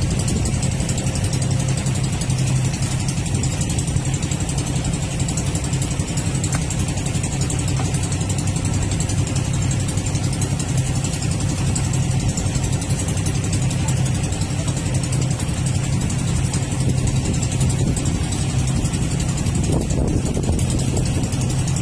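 Fishing boat's engine running steadily with an even, unbroken hum.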